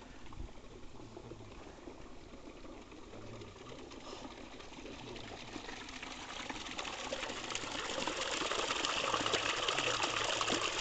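Water gushing down a narrow channel out of a travertine pool, an even rushing hiss. It grows louder from about halfway in and is loudest near the end.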